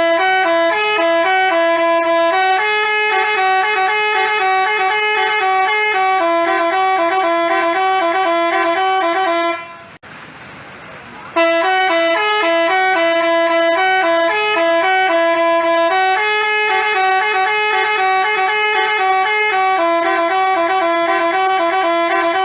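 Telolet basuri bus horn playing a multi-note tune, its held tones stepping between a few pitches. It breaks off about ten seconds in for a short pause, then plays the tune again.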